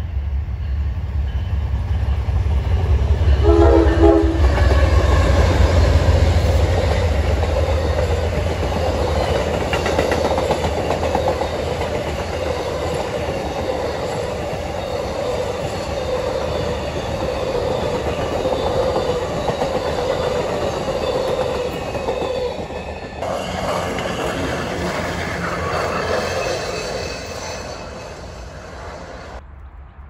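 Amtrak passenger train passing, hauled by a diesel locomotive: a heavy low rumble, strongest in the first few seconds, with a short horn blast about three seconds in. Then the steady rumble and clatter of the passenger cars rolling by, fading near the end.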